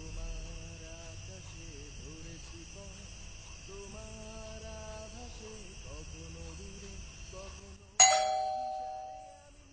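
A single loud doorbell-like chime strike about eight seconds in, ringing out and fading over about a second and a half. It sounds over a steady high chirring like crickets and faint low wavering tones.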